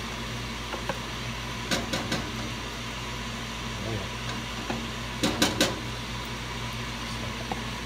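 A wooden spoon scraping and knocking crushed tomatoes out of a carton into a stainless steel pot. There are a pair of sharp taps about two seconds in and a louder cluster of three knocks around five seconds in, over a steady low hum.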